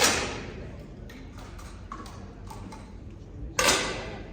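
Air rifle shots on an indoor firing line: two sharp reports with a reverberant tail, one right at the start and one about three and a half seconds in, with faint clicks in between.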